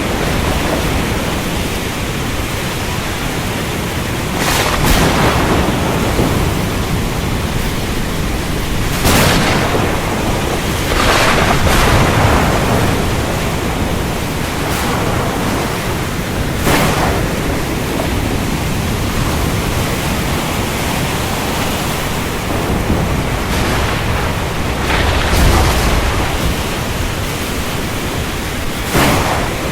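Steady heavy rain with thunder: a continuous low rumble broken by about six sharp thunderclaps a few seconds apart.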